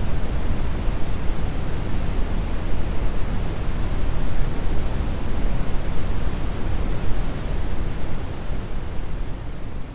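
Synthetic brown noise generated in Adobe Audition: a steady, even hiss-free rush weighted heavily toward the bass, with no tones or rhythm, beginning to fade near the end.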